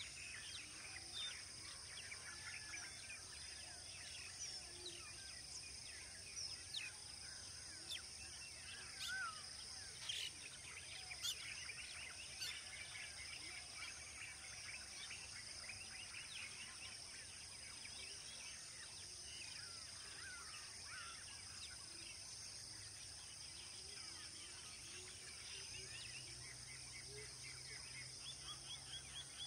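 Many birds chirping in short, quick calls over a steady high-pitched insect drone. The chirping is busiest in the first half and picks up again near the end.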